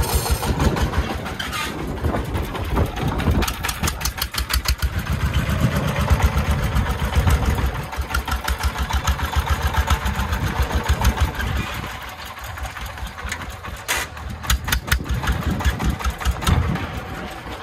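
Công nông three-wheeled farm truck's single-cylinder diesel engine running under load, an even, rapid train of firing beats, as the soil-laden dump truck drives over rubble.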